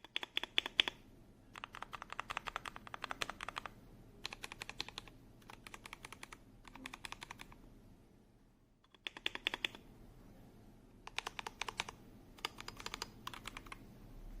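Typing on an RK Royal Kludge M75 mechanical keyboard with red linear switches: short bursts of rapid keystrokes, about nine runs separated by brief pauses, the longest pause about two-thirds of the way in.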